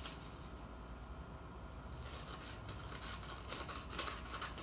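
Scissors cutting through a folded sheet of paper: faint, irregular snipping that grows a little more frequent and louder in the second half.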